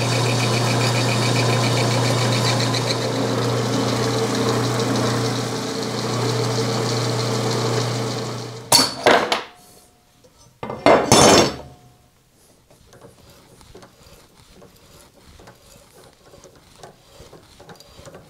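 Drill press running steadily with a low hum for about the first nine seconds, then it stops. Two short, loud clatters of steel parts being handled follow, then faint scattered ticks.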